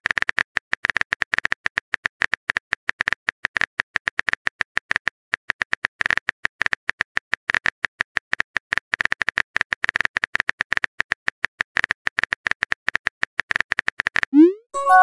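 Keyboard-typing click sound effects from a texting app, many quick irregular taps as a message is typed out. Near the end comes a short rising swoosh as the message is sent.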